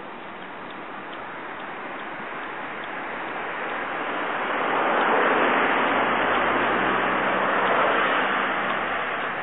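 Street traffic: a motor vehicle passes, its engine hum and tyre noise swelling to a peak about halfway through and easing off near the end.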